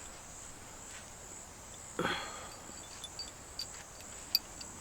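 Steady high-pitched chirring of crickets, with a short rustle about two seconds in and a few light clicks near the end as cord is handled.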